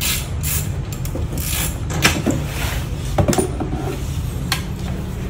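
A few sharp metallic clicks and knocks as tools and parts are handled on a motorcycle frame during assembly, over a low steady hum.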